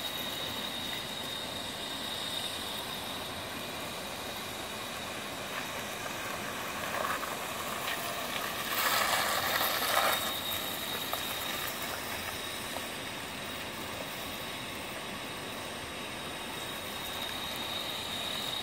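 A 2002 Dodge Stratus sedan rolling slowly past at low speed, its engine and tyres a steady low noise that swells as it passes closest, about nine to ten seconds in. A thin, steady high whine runs underneath throughout.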